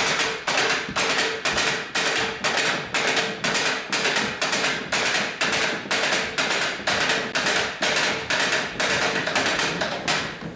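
Steady percussion beat, about two sharp strikes a second, each with a short ringing tail, over a faint held note.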